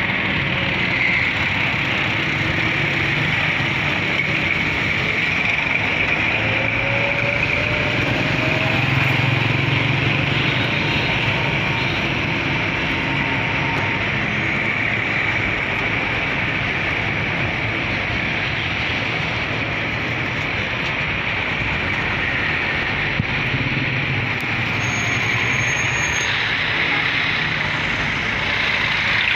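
Steady din of a busy road in traffic: the engines and tyres of cars, vans, trucks and motorcycles running close by, heard from a vehicle moving among them.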